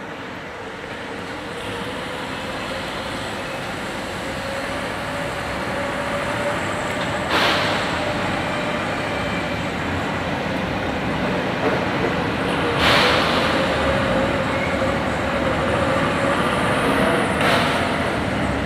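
Steady machinery or vehicle noise with a faint drone that creeps slightly higher in pitch, and three short bursts of noise about five seconds apart.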